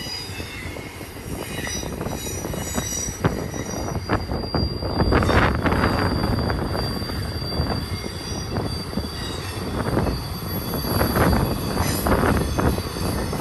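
Long intermodal freight train's container cars rolling past with a steady rumble. Thin, high wheel squeals ring over it on the curve, along with frequent short clanks from the running gear.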